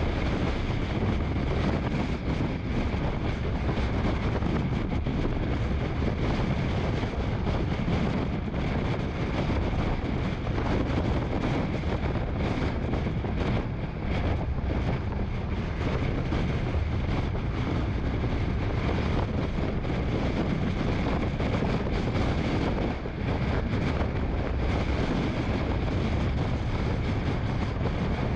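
Steady road and wind noise from a car driving at highway speed: a low tyre-and-engine rumble under a rush of wind.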